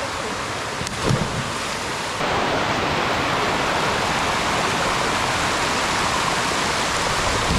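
A small waterfall rushing steadily, with a short splash about a second in. From about two seconds in the cascade is heard close up as water pours over the rock ledge, louder and hissier.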